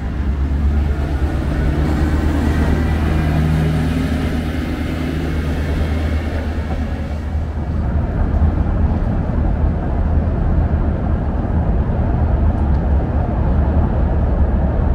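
Oigawa Railway Ikawa Line passenger train at the platform, moving past with a steady low rumble. A hum stands out from about two to five seconds in.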